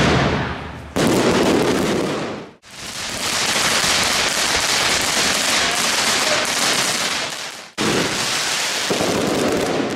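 Fireworks crackling: a dense, rain-like hiss of many small crackles from crackling effects. The sound breaks off and restarts abruptly three times as clips change.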